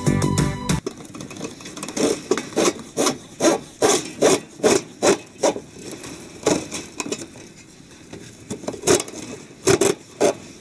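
Corrugated plastic electrical conduit scraping and rubbing against ceramic slab blocks and rebar as it is worked into place, in a run of short rasping strokes a few per second, pausing briefly and resuming near the end.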